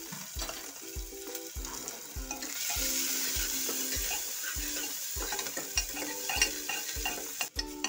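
Chopped garlic and onion sizzling in hot oil with mustard seeds and cumin in an aluminium pressure-cooker base. The sizzle swells louder about two and a half seconds in as steam rises from the pot.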